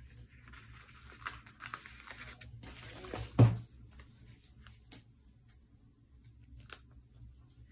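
Paper sticker sheet rustling as a sticker is peeled off, then a single dull thump about three and a half seconds in, the loudest sound, followed by two light taps as the sticker is pressed onto the journal page.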